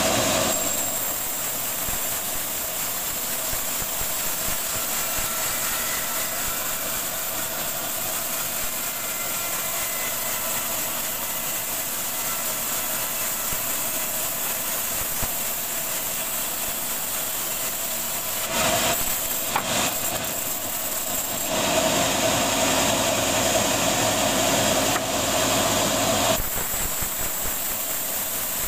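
Slendang sawmill, a vertical up-and-down saw blade, running and cutting lengthwise through a rambutan log. The sawing gets louder for a couple of seconds past the middle and again for several seconds near the end.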